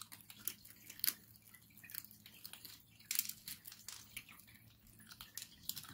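Several kittens eating dry kibble from a shared plate: faint, irregular crunches and crisp clicks as they chew.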